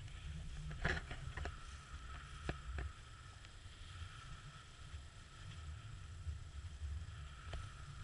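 Sailing boat under way: water rushing along the hull of a MacGregor 26X under sail, with wind buffeting the microphone as a steady low rumble. A few sharp knocks: several about a second in, two more near the three-second mark and one near the end.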